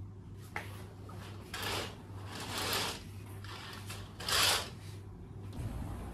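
Curtains being drawn open: three swishes of fabric sliding along a rail, the last the loudest, over a steady low hum.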